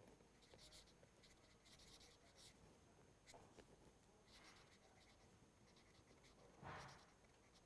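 A marker pen scratching faintly across paper in many short strokes as a word is handwritten. There is one louder brief noise near the end.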